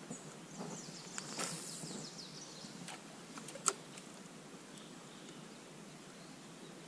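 Quiet outdoor ambience on a forest river, with a few sharp clicks and knocks in the first four seconds, the sharpest about three and a half seconds in, and faint high chirps early on.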